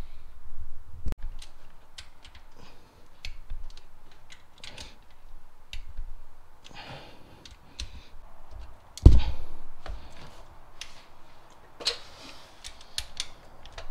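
Irregular metal-on-metal clicks and taps of a socket and long wrench working on the rocker-shaft bolts of the exposed valve train, with one louder clunk about nine seconds in.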